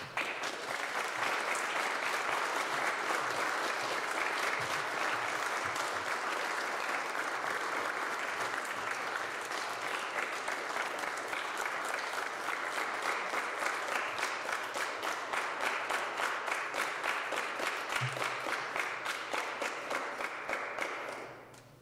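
An audience applauding steadily for about twenty seconds, then stopping near the end. In the second half the clapping falls into a loose shared rhythm of about three claps a second.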